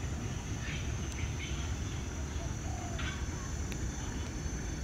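A few short bird calls, about three, over a steady low rumble and a faint steady high-pitched whine.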